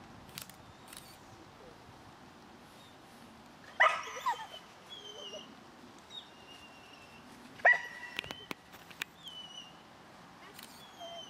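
A dog barking and yelping in short bursts: a pair of barks about four seconds in, then a sharper yelp with a held high note near eight seconds.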